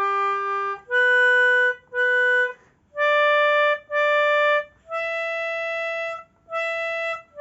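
Melodica playing a slow, detached melody one note at a time: sol, then si twice, re twice, a longer mi, mi again and re, each note a steady reed tone with short breaks between.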